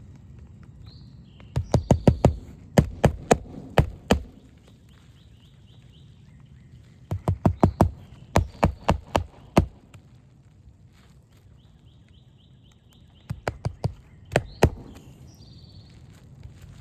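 Hammer driving roofing nails into a replacement asphalt shingle: three runs of quick, sharp strikes, the first two lasting two to three seconds and the last about a second. Birds chirp and trill faintly between the runs.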